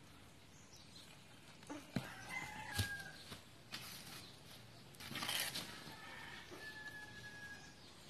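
Faint rooster crowing: a short call about two seconds in and a longer drawn-out one near the end. A couple of sharp knocks come about two and three seconds in and are the loudest sounds.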